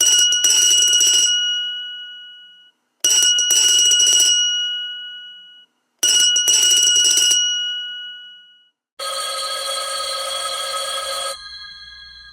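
Vintage 1940s telephone bells ringing: three rings about three seconds apart, each a short clattering burst of the bell that rings on and fades. About nine seconds in, a different, lower-pitched telephone bell rings steadily for about two seconds, then fades.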